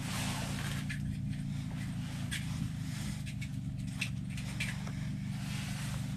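A steady low mechanical hum with scattered light clicks and scrapes.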